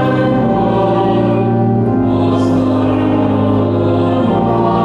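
Church music: a choir singing a hymn in long held chords, changing chord a couple of times.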